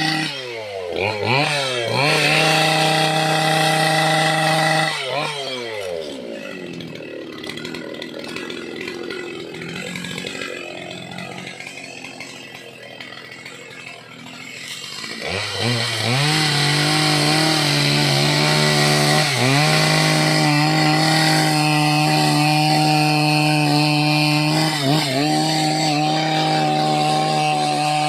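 Two-stroke gasoline chainsaw blipped up and down, then held at high revs. Partway through it drops to a low idle for several seconds, then revs back up and runs at high revs with brief dips, sawing into dry, hard teak.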